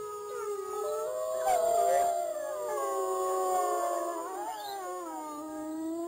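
Several canines howling together: long overlapping howls that slide slowly up and down in pitch.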